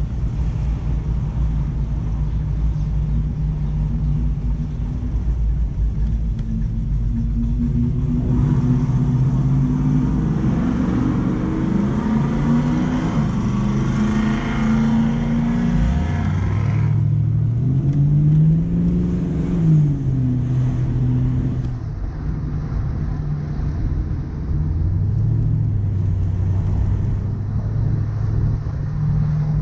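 Car engine under way while driving, mostly holding a steady pitch, with a rise in revs a little past halfway that then falls back, as the car accelerates and eases off.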